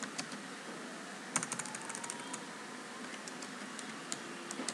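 Computer keyboard keys being typed in short runs of light clicks, with a quick flurry about a second and a half in, as a typo is deleted and the word retyped.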